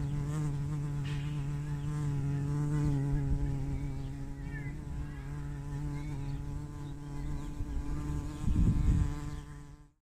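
Bumblebee flying close by, its wingbeats making a steady low buzz. A brief low rumble swells near the end before the sound fades out.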